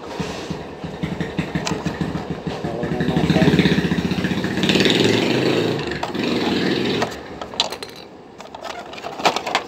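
Fast mechanical rattling and whirring from a blender's motor unit and its toothed drive gear while the gear is turned loose with a screwdriver. It swells in the middle, drops away about seven seconds in, and is followed by a few sharp clicks near the end.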